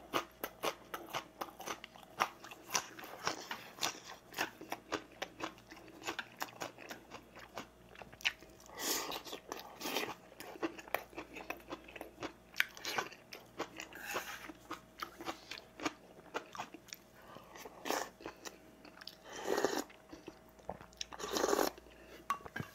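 Close-miked mukbang chewing of crunchy onion kimchi and other side dishes: a steady run of small crunches and wet mouth clicks. A handful of louder bites come about nine, ten, fourteen, eighteen and twenty seconds in.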